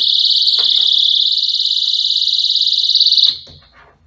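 eAlarm+ personal safety alarm sounding a loud, shrill, rapidly pulsing tone, set off when the door opened and pulled the tripwire pin. It cuts off suddenly about three seconds in.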